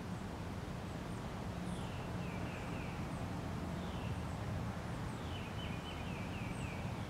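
Outdoor ambience picked up by a camera's built-in microphone: birds chirping, with runs of short repeated notes about two seconds in and again about five seconds in, over a steady low rumble and hiss.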